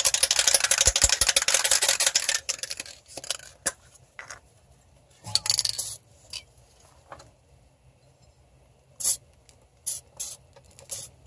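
Aerosol can of PB Blaster dry lubricant with Teflon spraying onto a CV axle boot to stop it squeaking. One long hiss lasts about two seconds, followed by several short bursts and then a few scattered clicks.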